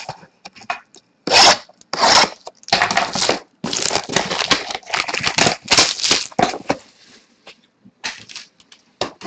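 Plastic wrapping on a sealed box of trading cards being torn open and crumpled: a run of loud, irregular tearing rasps, then fainter rustling near the end.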